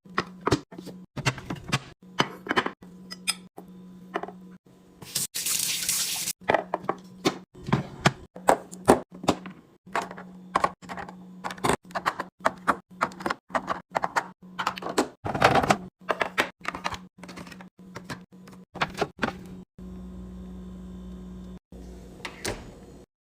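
Fridge restocking: a quick run of clicks, knocks and clinks as containers, jars and packages are handled and set down, over a steady low hum. About five seconds in there is a short rushing hiss like pouring or running water.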